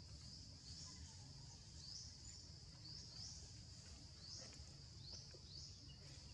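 Faint outdoor ambience: a steady high-pitched insect-like drone with short rising chirps repeating irregularly, about every half second to a second, over a low rumble.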